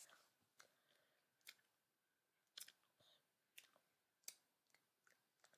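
Faint, irregular mouth clicks and smacks, roughly one a second, from chewing a jelly bean.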